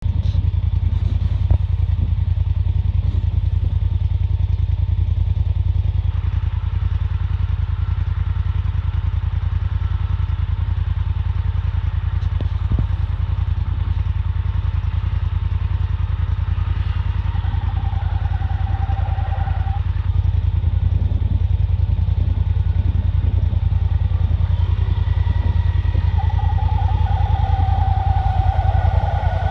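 ATV engines running: a steady low engine drone throughout, with a higher engine whine that comes and goes and is strongest in the last few seconds as the quad closes in through the flooded trail.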